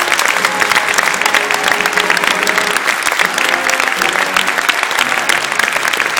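Large theatre audience applauding steadily, with the orchestra faintly playing underneath.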